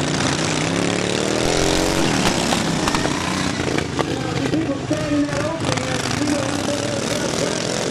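Racing lawn mowers' small engines running at speed. One engine revs up, rising in pitch, about a second in.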